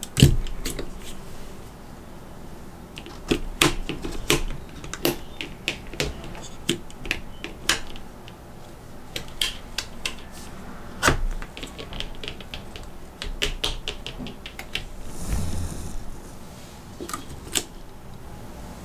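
Hard plastic and metal action-figure parts and accessories clicking and tapping as they are handled and set down, a long irregular run of sharp clicks, the loudest right at the start. About fifteen seconds in there is a softer rustle with a low thud.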